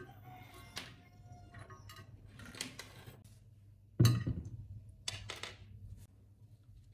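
Alligator clips and a bent-wire electrode being handled over a glass dish of electrolysis solution: small metallic clicks and rattles, with one sharp knock about four seconds in.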